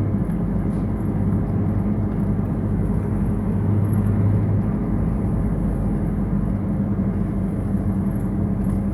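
Vehicle engine running steadily: a constant low hum with road-and-engine noise, no change in pitch or level.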